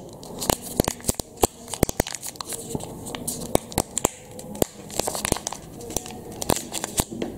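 Hands unwrapping a coiled USB charging cable, with irregular crinkling and many small clicks as the wrapping is pulled and the cable handled.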